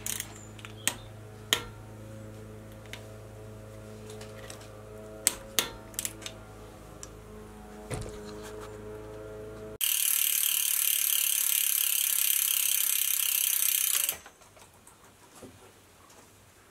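A bicycle rear hub's freewheel ratchet buzzing loudly for about four seconds as the DT Swiss rear wheel spins, then cutting off to a few scattered ticks. Before it come a handful of sharp clicks from work on the rear derailleur and brake, over a steady low hum.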